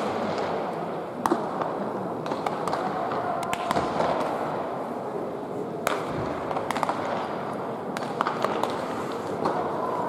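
Baseballs popping into leather gloves as several players play catch, sharp irregular smacks a second or so apart, over a steady background murmur.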